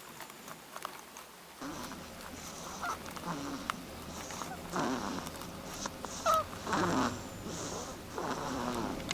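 Hazel dormouse asleep in a nest tube, snoring softly: short breaths about once a second, starting about one and a half seconds in. A brief falling squeak comes about six seconds in.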